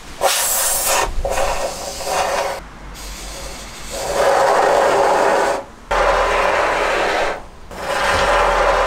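Aerosol can of expanding foam spraying through its straw nozzle, hissing in several bursts one to two seconds long with short breaks between them.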